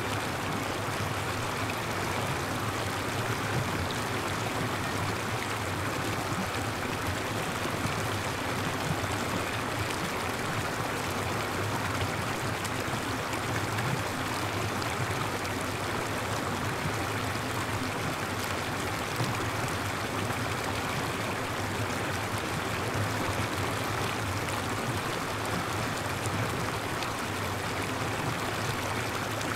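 Steady rush of water falling from an artificial overhead rain shower onto people standing under it.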